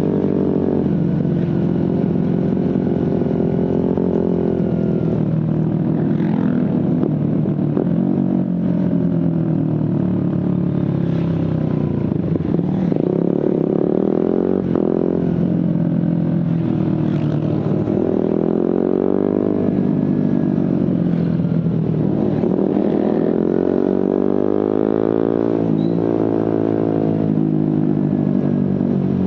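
Suzuki GSX-R150's single-cylinder engine through a Prospeed aftermarket exhaust, heard from the rider's position, repeatedly rising in pitch under acceleration and falling back as the throttle closes, over and over while riding through traffic.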